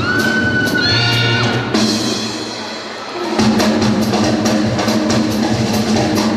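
Band music with a drum kit: a held high note over the first second and a half, then drums alone briefly before the band comes back in with steady notes and drums.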